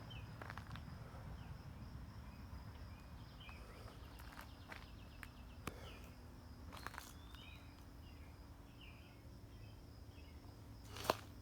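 Outdoor rural ambience: short bird chirps over a steady high insect drone and a low rumble, with a few sharp clicks, the loudest near the end.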